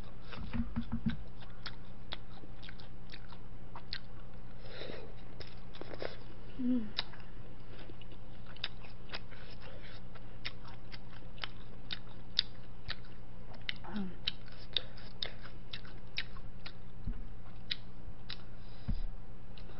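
Close-miked eating sounds: chewing of tteokbokki and sundae, with a steady run of small wet mouth clicks and smacks. A steady low hum runs underneath.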